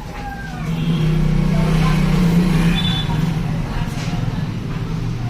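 A road vehicle's engine running, a low hum that grows louder about a second in and eases off after about three seconds, with faint voices behind it.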